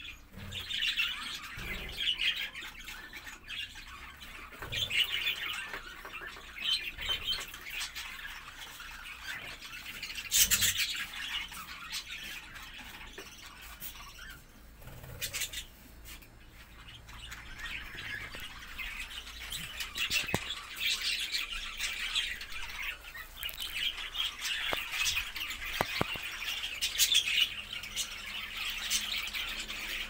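Flock of budgerigars chattering and warbling without pause, the chorus swelling and easing by turns, with a few sharp squawks.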